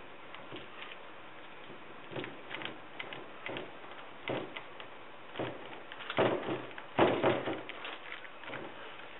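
Brush dabbing and scraping resin into wet fibreglass in a boat mold: an irregular run of short wet dabs and scrapes, loudest about six to seven seconds in.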